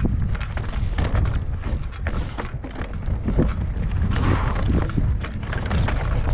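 Mountain bike clattering and rattling over rocky mountain trail, with irregular knocks throughout and wind rumbling on the microphone.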